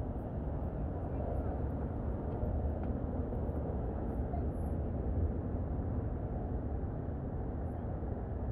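Steady low outdoor rumble at an even level, with no distinct event standing out.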